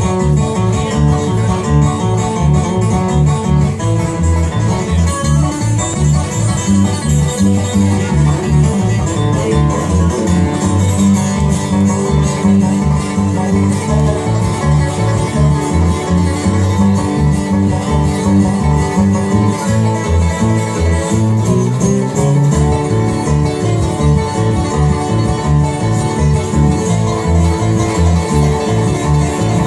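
Bluegrass band playing an instrumental break, with picked banjo and guitar over a bass line in a steady rhythm.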